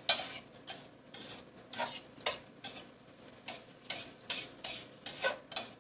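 Metal spoon clinking and scraping against a metal frying pan while stirring chicken and vegetables: irregular clinks, a few a second.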